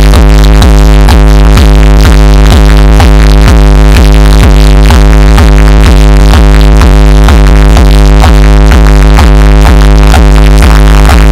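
Electronic dance music blasting at full volume from a DJ truck's loudspeaker stacks during a sound test, with heavy bass and a steady kick-drum beat.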